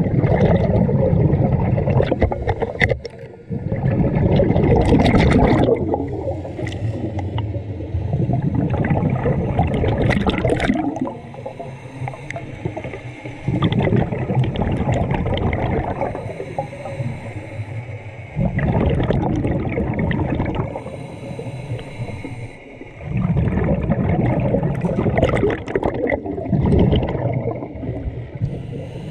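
Scuba diver breathing through a regulator underwater: exhaled bubbles gurgling in stretches of a few seconds, with quieter inhalations between.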